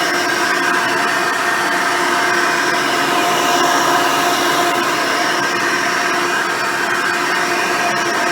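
Hoover Decade Elite Soft & Light upright vacuum cleaner running steadily: a constant motor whine with several steady tones over a rushing hiss of air.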